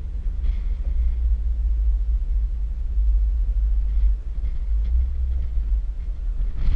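Off-road 4x4 driving over soft sand: a steady low rumble from the vehicle, with a few faint knocks.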